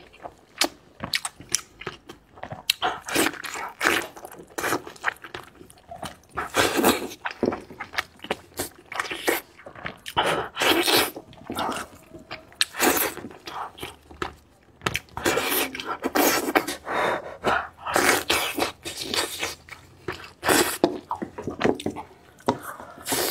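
Close-up eating sounds: a person biting and chewing meat from a spiced sheep's head, with many irregular sharp clicks and short bursts of chewing.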